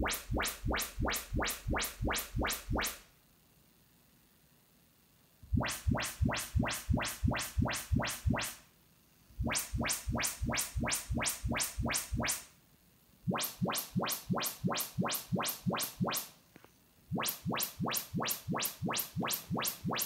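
Yamaha RX-V677 receiver's YPAO auto-setup test signal played through the speakers: trains of sharp pulses, about four a second, in five bursts of roughly three seconds each. Each burst comes from the next speaker in turn, with short quiet gaps between them.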